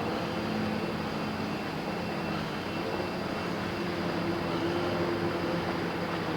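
An engine running at a steady drone, with low humming tones that shift a little in pitch about halfway through.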